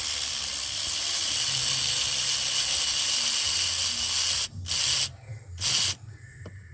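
Compressed-air tool running in one long steady stretch of about four and a half seconds, then two short bursts, while work goes on at the 6.0 diesel's injectors.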